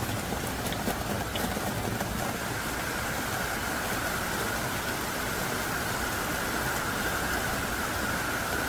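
Heavy rain pouring down in a steady, dense hiss, with a few sharp drop ticks in the first second or so.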